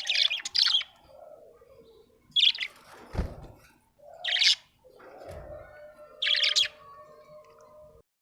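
Budgerigar chirping in four short bursts of high chirps about two seconds apart, with a couple of low thumps between them; the sound cuts off just before the end.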